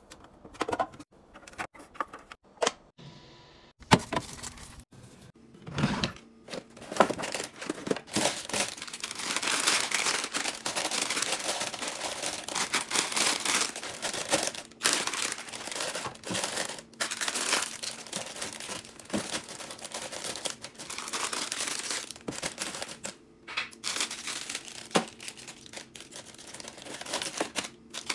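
Small foil chip packets crinkling and rustling as they are handled and packed upright into a drawer. The first few seconds hold a few separate sharp clicks and taps before the crinkling starts.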